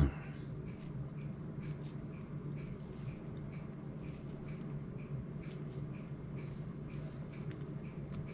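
Hand-held vegetable peeler scraping the thin skin off a guava in short, soft scratchy strokes with small clicks. A steady low hum runs underneath, and a brief falling voice-like sound comes right at the start.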